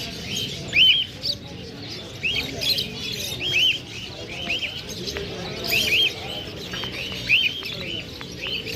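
Caged market birds chirping: short, arching chirps repeated again and again, several birds calling over each other.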